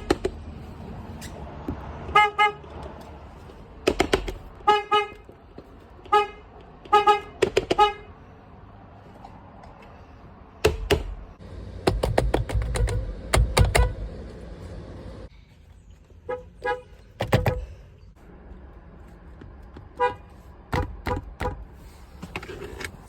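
A car horn sounded in many short beeps, single and in quick pairs, with a pause in the middle filled by a cluster of clicks and thumps.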